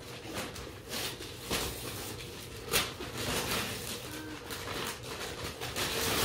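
Wrapping paper rustling and tearing in irregular crackly bursts as a present is unwrapped.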